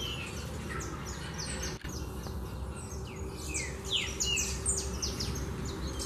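A flock of small finches, saffron finches and seedeaters, chirping: many short, quick, falling chirps overlapping, growing busier in the second half.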